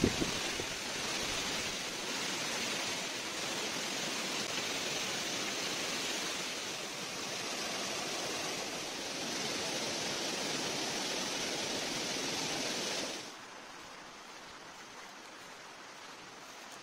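Steady rushing of a small stream cascade, an even hiss of running water. About thirteen seconds in it drops suddenly to a much fainter hiss.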